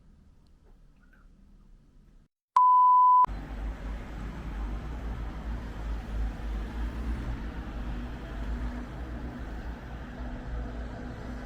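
A single steady electronic beep, one pure tone lasting about half a second, about two and a half seconds in. After it, steady outdoor noise with a deep rumble and hiss runs on.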